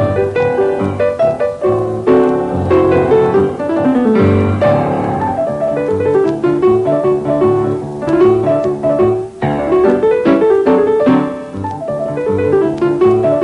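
Background piano music: a busy line of quick short notes, with a falling run about four seconds in.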